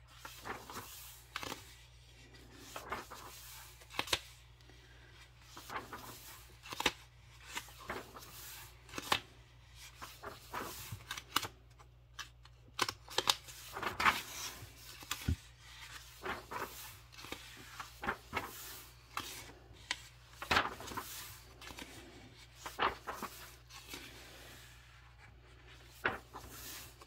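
Paper pages of a coloring book being turned and handled: irregular rustles and crisp snaps, about one or two a second.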